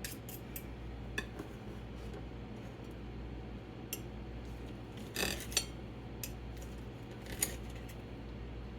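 A metal fork and knife cutting hamburger patties, with a few scattered clinks and scrapes against the dish and a small cluster about five seconds in. A steady low hum runs underneath.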